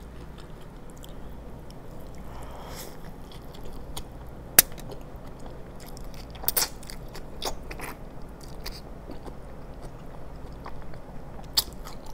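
Close-miked biting and chewing of a big, messy animal-style burger: soft wet mouth sounds with scattered sharp clicks, the sharpest about four and a half seconds in, over a steady low hum.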